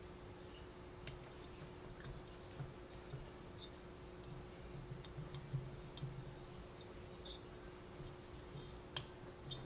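Faint, scattered clicks and light metal taps as the cylinder of a 66cc two-stroke bicycle engine is eased down over its compressed second piston ring, with a sharper click near the end.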